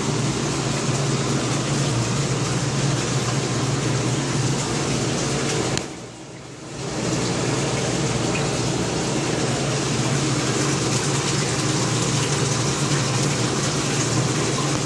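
Steady rush of water and pump hum from a saltwater aquarium holding system, with a constant low hum under the noise. It drops out briefly about six seconds in, then comes back unchanged.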